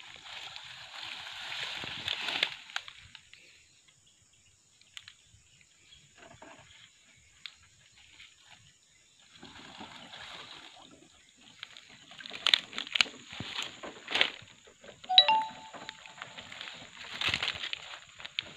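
Dry palm fronds rustling and crackling as a wire-mesh fish trap is uncovered and pulled from shallow swamp water, with sloshing water, sharp crackles and knocks, and a short ringing ding about fifteen seconds in.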